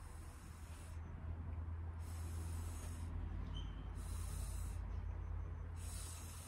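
Breath blown hard through a drinking straw in three separate puffs, each an airy hiss lasting under a second, to push wet ink across paper. A steady low rumble runs underneath.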